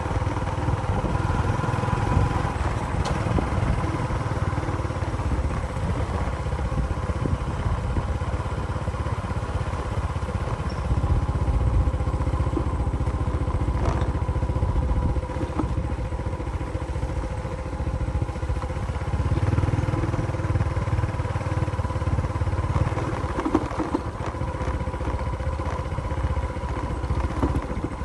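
A motor engine running steadily, with a continuous low rumble and a steady hum.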